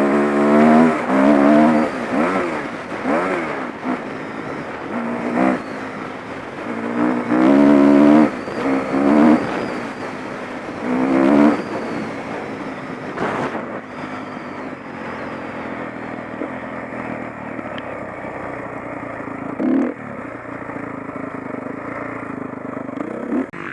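Honda CRF450 dirt bike's single-cylinder four-stroke engine revving up and down repeatedly under throttle, then running at a steadier, lower level for the second half.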